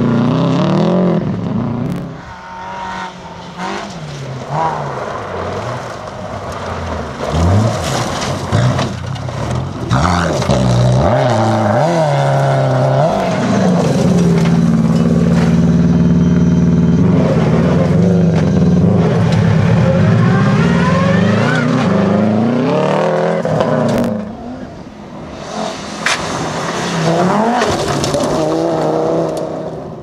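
Rally cars driven hard on loose gravel: engines revving up and falling back through gear changes, with gravel and stones spraying from the tyres. Midway one engine holds a steady high pitch for a few seconds before dropping away.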